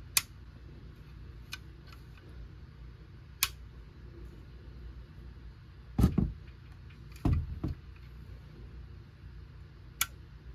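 Aluminium air-gun breech parts being handled and fitted together: a few sharp metallic clicks spread apart, and two short clusters of duller, louder knocks a little past the middle.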